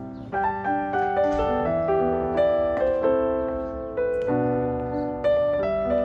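Background piano music: a slow, gentle piece of struck chords and melody notes, each left to ring and fade.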